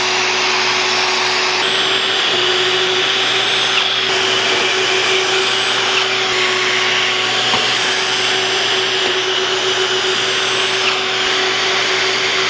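Shop vacuum running steadily on the dust port of a pocket-hole jig, with a drill spinning a stepped bit through the jig's guide from about two seconds in, boring a pocket hole a little deeper into plywood.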